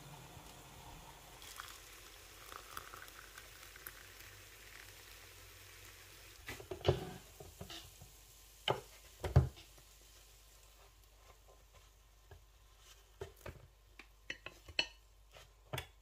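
Kitchen handling sounds: soft pouring of water into a mug at first, then a ceramic plate and utensils knocked against a stone countertop, two knocks louder than the rest, followed by a scatter of light clicks.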